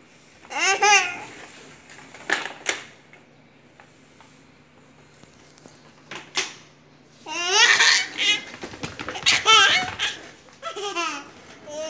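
A toddler laughing in high-pitched bursts several times, with the longest and loudest run of laughter about two-thirds of the way through.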